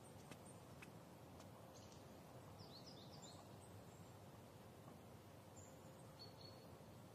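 Near silence: faint outdoor background hiss, with a couple of soft taps near the start and a few faint bird chirps about three seconds in.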